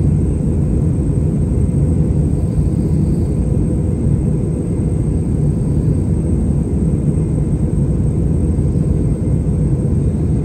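Airliner cabin noise in flight, heard from inside the cabin: a steady, loud low rumble that does not change.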